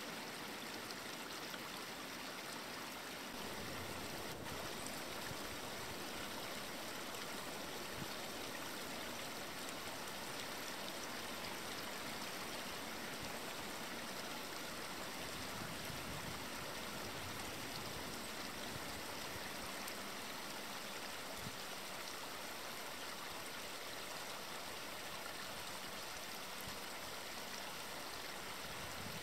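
A steady rush of running water, even and unchanging throughout.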